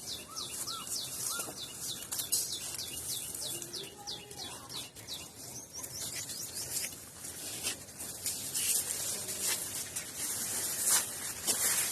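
A bird calling: a quick run of short, high, falling notes, about three a second, over the first few seconds. Scattered light clicks follow.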